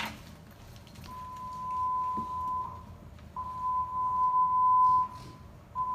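Three long, steady electronic alert tones at one pitch, each about a second and a half long with short gaps between them: a fire dispatch radio alert sounded for the last alarm. The third tone begins near the end.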